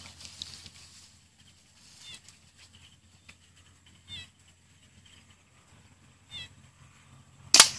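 An animal's short, high calls, one every two seconds or so, over a faint low hum, with one loud, sharp noise near the end.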